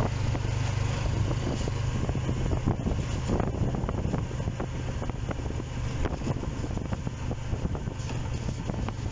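An engine running steadily with a low hum, under a rushing noise with scattered crackles.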